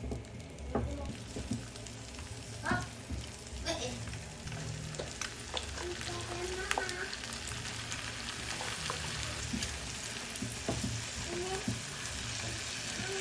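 Food sizzling in a hot frying pan as it is stir-fried, with scattered clicks and scrapes of a spatula against the pan. The sizzle thickens about five seconds in.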